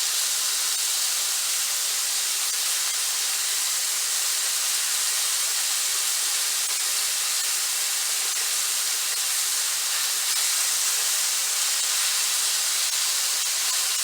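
Salted chicken thigh pieces sizzling steadily as they sear in a very hot pan.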